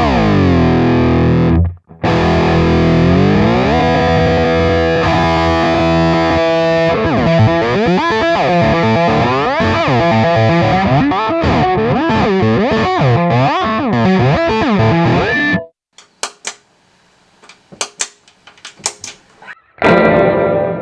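Distorted electric guitar played through a Digitech RP1000 whammy pitch-shift effect: held notes slide down and back up in pitch, then fast wobbling pitch bends. The playing stops about three-quarters of the way in, a few faint clicks follow, and a single chord rings out near the end.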